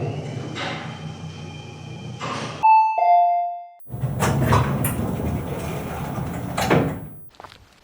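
Cartoon sound effects: a noisy rumbling clatter, then a two-note falling ding-dong chime about three seconds in. A brief gap follows, then more noisy clattering, which gives way near the end to soft, regular footstep-like taps.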